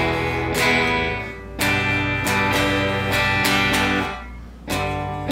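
Hello Kitty Squier Stratocaster electric guitar with a single humbucker, played with a clean tone: open chords strummed one after another, each left to ring, with a short dip in sound before a new strum near the end.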